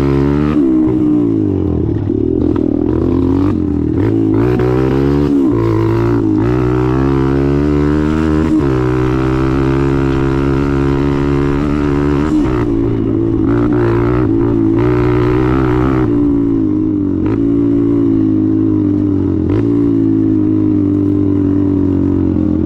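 Suzuki DR-Z dirt bike's single-cylinder engine running, its revs holding steady, then rising and dropping several times.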